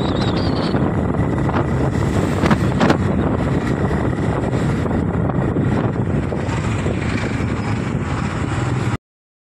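Wind buffeting the microphone over the steady running and road noise of a vehicle climbing a hill road, with two brief knocks about two and a half seconds in. The sound cuts off abruptly near the end.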